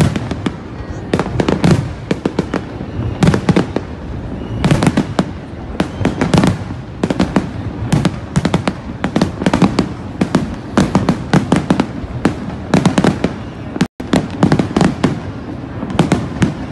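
Aerial fireworks shells bursting in rapid succession, a dense run of bangs and crackle. The sound cuts out for an instant near the end.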